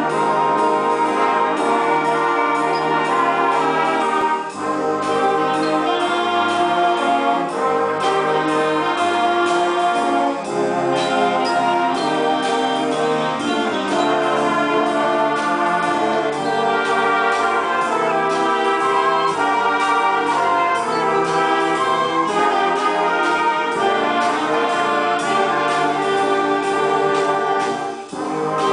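Community concert band playing, clarinets and brass together, with brief breaks between phrases about four and ten seconds in and near the end.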